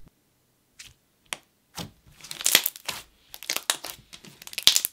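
Glossy baby-pink slime being pressed, folded and poked by hand, making irregular runs of short clicks and pops as air pockets burst.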